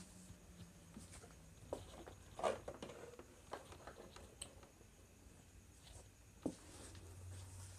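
Faint scattered clicks and scrapes of multimeter test probe tips being set down and moved on the solder joints of a circuit board, the sharpest about two and a half seconds in.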